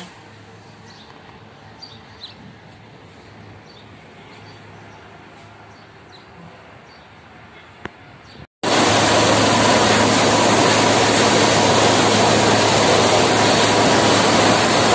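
Faint outdoor ambience with a few small high chirps for about the first eight and a half seconds, then, after an abrupt cut, the loud steady din of grain-mill machinery running, with a low hum underneath.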